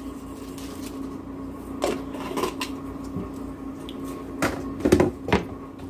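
Bacon bits shaken from a small glass jar onto a salad in a plastic container, with a few sharp knocks and clatters as the jar and containers are handled, the loudest about five seconds in. A steady low electrical hum runs underneath.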